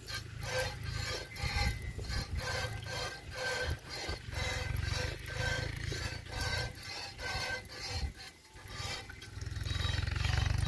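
A cow being milked by hand: rhythmic hissing squirts of milk, about two a second. Wind rumbles on the microphone underneath and grows louder near the end.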